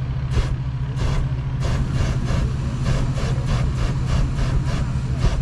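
Motor vehicle engine idling with a steady low hum, with short irregular sounds over it.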